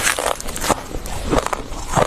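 Thick freezer frost being bitten and chewed: crisp, crackling crunches in quick clusters about every half second.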